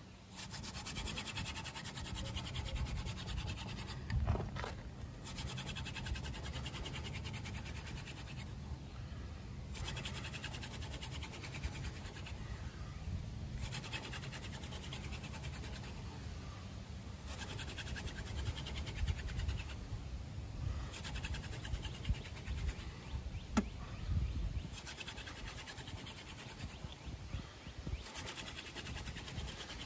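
Hand drill friction fire: a horseweed spindle spun back and forth between the palms on a Virginia pine hearth board, a rapid wood-on-wood scratching in runs of about three to four seconds. Each run is broken by a brief pause as the hands go back to the top of the spindle. Wind rumbles on the microphone underneath.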